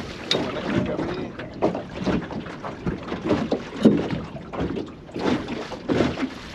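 Strong wind buffeting the microphone aboard a small drifting boat, gusting unevenly with a few sharp knocks and splashes mixed in.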